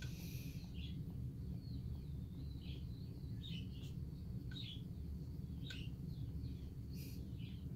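Newborn corgi puppies squeaking: short, high chirps scattered every half second to a second, one drawn out into a brief glide, over a steady low hum.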